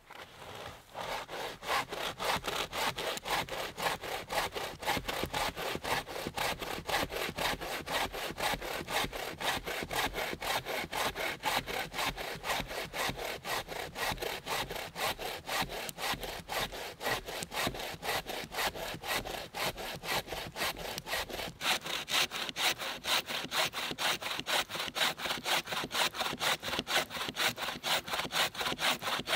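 Wooden-framed bow saw cutting through a dead log in quick, even push-pull strokes, each stroke a dry rasp of the blade in the wood. The rasp turns sharper and brighter about two-thirds of the way through.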